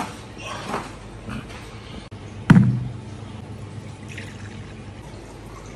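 Water pouring into a small bowl on a stainless steel surface, with one loud knock about two and a half seconds in.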